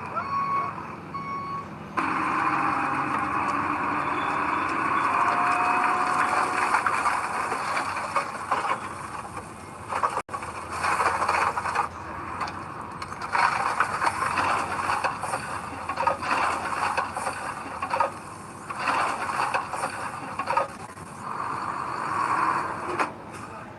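A truck's reversing alarm beeps a few times, then cuts off. Loud heavy earthmoving machinery takes over: diesel engine noise with scraping and squeals as soil is moved. The sound breaks off abruptly for an instant about ten seconds in.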